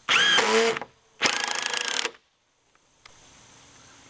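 Cordless impact driver driving screws into wooden floor joists in two bursts of about a second each; the motor spins up in the first and hammers rapidly in the second.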